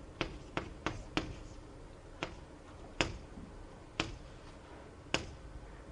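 A series of about eight sharp, irregularly spaced taps of writing on a board, made while a parse tree is drawn out.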